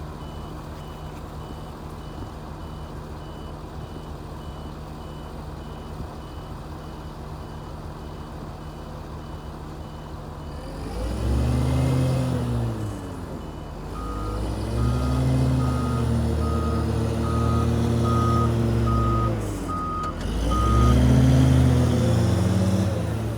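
Diesel engine of heavy farm machinery idling with a reversing alarm beeping, then revving up and down three times under load from about halfway through, while a louder, lower-pitched reversing alarm beeps.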